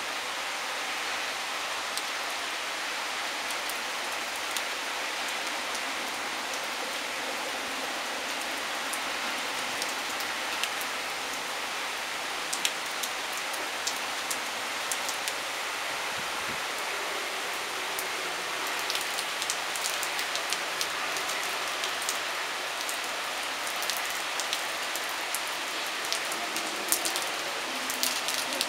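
Cloudburst: torrential rain falling in a steady, dense hiss. Scattered sharp drop ticks are heard on top, more of them in the second half and most near the end.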